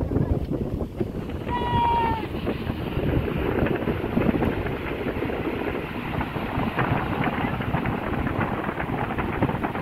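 Wind buffeting the microphone aboard a passenger boat under way, over the steady noise of the boat moving through the water. About one and a half seconds in, a short high tone sounds briefly, falling slightly in pitch.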